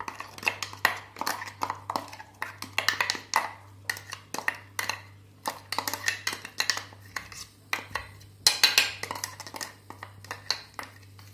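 Steel spoon scraping and knocking against a stainless-steel mixer-grinder jar, scooping thick ground lentil paste out into a steel bowl, in irregular clinks and scrapes; the loudest burst comes about eight and a half seconds in. A faint steady low hum runs underneath.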